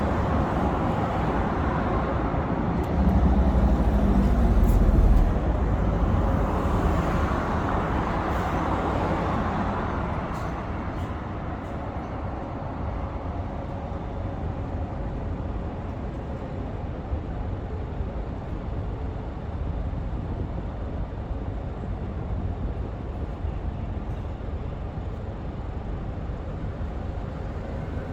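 City street traffic: a vehicle passes close during the first ten seconds or so, with a heavy low rumble about three to five seconds in, then a steadier, quieter traffic hum.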